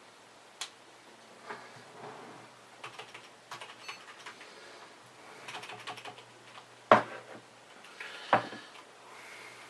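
Computer keyboard keys pressed in scattered clicks, with two louder clacks near the end, as keys are pressed during boot to get into the BIOS setup.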